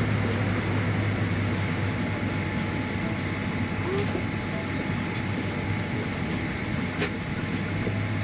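Steady cabin noise inside a Boeing 787-10 during pushback: the aircraft's air-conditioning and systems running as a low hum with faint steady whines above it. A faint click sounds about seven seconds in.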